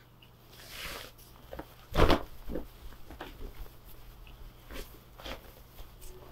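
Canvas tote bag and fabric being handled: cloth rustling with scattered small knocks, and one loud thump about two seconds in.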